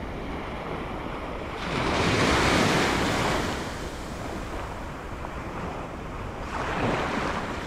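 Surf breaking on a sandy beach: one wave crashes about two seconds in, the loudest sound, and a smaller one near the end. Wind buffets the microphone throughout.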